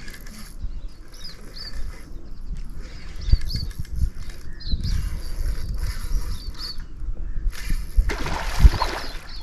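Wind rumbling on the microphone, with small birds chirping over and over and a short splash of water about eight seconds in.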